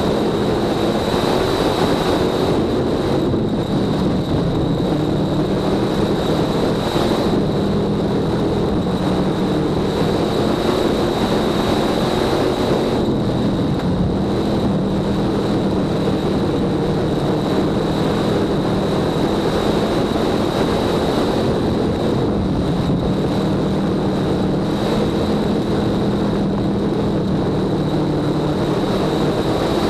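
Dirt-track race car engine heard from inside the cockpit under racing throttle, its pitch rising on the straights and dropping as the driver lifts for the turns, every several seconds. A steady high-pitched whine sits over it throughout.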